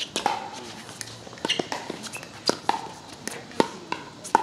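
Pickleball paddles striking a hard plastic pickleball during a doubles rally: a string of sharp pops at uneven intervals, some with a short ring, two coming close together near the end.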